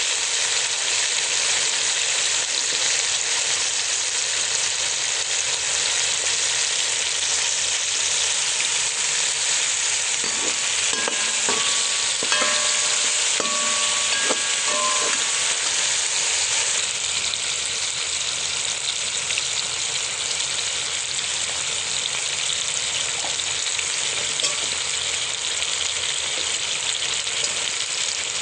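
Ingredients frying in hot oil in a pan, giving a steady sizzle. Midway through, a utensil stirs them, with a few short scraping squeaks and light knocks against the pan.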